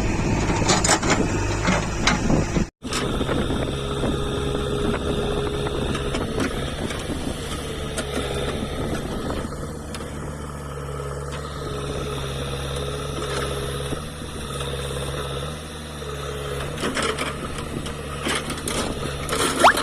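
JCB backhoe loader's diesel engine running steadily under work, with scattered metallic knocks near the start and again near the end. The sound cuts out for an instant about three seconds in.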